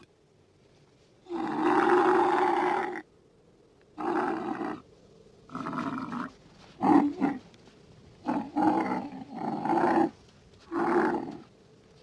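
Dromedary camel bellowing during mating, the couched she-camel calling as the bull covers her: a series of about seven loud calls, the first the longest, with short silences between.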